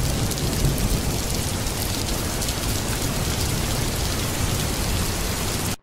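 Heavy rain falling steadily, an even hiss with a low rumble underneath, cutting off suddenly at the end.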